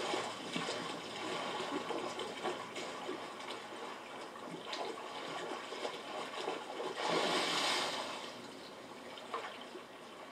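Sea water splashing and sloshing around swimmers in the surf, with many small splashes and a louder surge of splashing about seven seconds in, then quieter toward the end.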